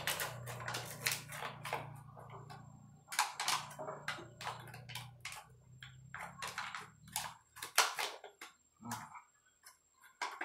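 Irregular metallic clicks and scrapes as thin tin-can strips, used as shims to guide a lip seal in, are handled and shifted against the inside of a steel 4L60E reverse input drum.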